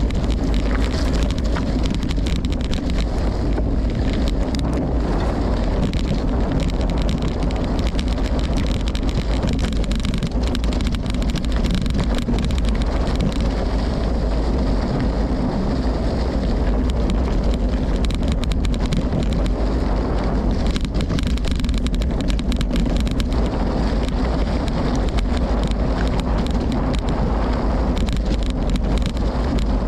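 Steady low rumbling wind noise on the microphone of a rider on a gravel bike moving along dirt trail, with no pauses or breaks.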